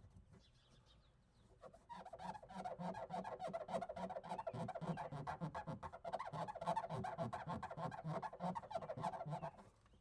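A wipe wet with isopropyl alcohol squeaking in rapid back-and-forth strokes against car window glass. It starts about two seconds in and stops just before the end. The squeak is a sign that the glass is coming clean.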